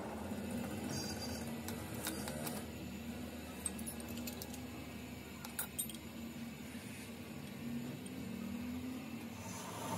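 A few sharp metallic clicks and clinks as a cutting tool is set and clamped in a lathe's tool post, over a steady low hum.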